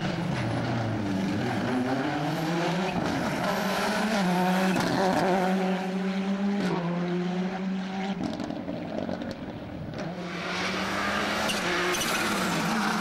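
Rally car engines at full racing pace, revving hard and dropping in pitch with each gear change as the cars pass. Near the end a Subaru Impreza WRC's engine builds as it approaches.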